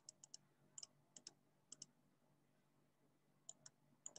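Faint clicking at a computer, a few short clicks in quick pairs spread over a few seconds, with near silence between them.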